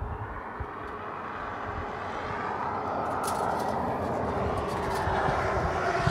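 A vehicle approaching, its engine and road noise growing steadily louder.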